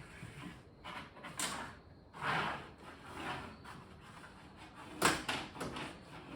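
Steel fish tape being fed up through a wall cavity, a run of irregular scraping and sliding sounds with the loudest scrape about five seconds in.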